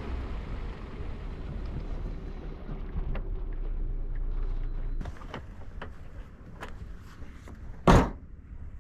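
Low rumbling outdoor noise that eases off after about five seconds, with scattered light clicks and one loud thump near the end.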